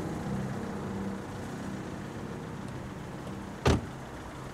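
A car door slams shut once, sharply, about three and a half seconds in, over the low steady hum of the car. Background music fades out in the first second.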